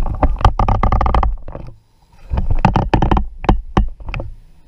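Loud handling noise on the camera's microphone: rough rumbling with many knocks and rubs against the plastic boat, in two spells with a short break about two seconds in.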